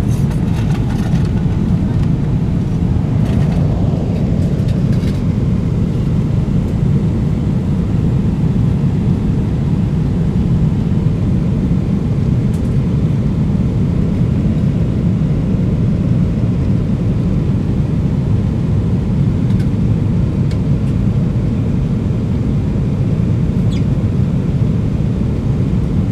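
Steady cabin noise of a Boeing 777-300ER in flight, heard from inside the cabin: an even, deep rumble of its GE90 engines and the airflow over the fuselage.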